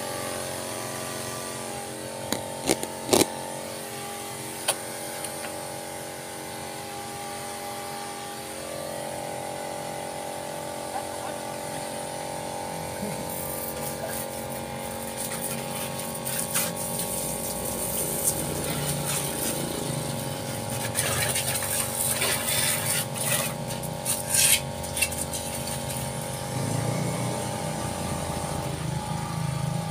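A 12-volt DC mini pump pressure washer running with a steady whine while its water jet hisses and spatters on a motor scooter. The spray grows louder and splashier in the middle, with a few sharp clicks about three seconds in.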